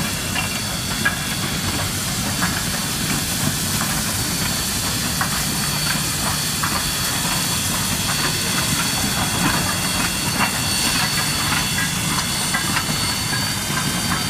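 CNR #2141, a 2-8-0 steam locomotive, rolling past with a steady loud hiss of escaping steam, scattered light clicks and clanks from the running gear, and a low rumble underneath.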